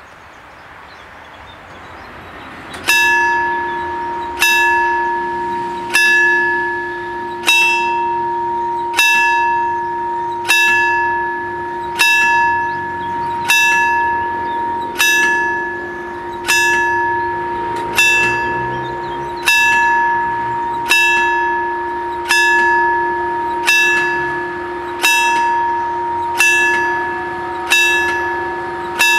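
Italian level-crossing warning bell, starting about three seconds in and striking about once every second and a half, each stroke ringing out and fading before the next: the warning that the crossing is closing for an approaching train.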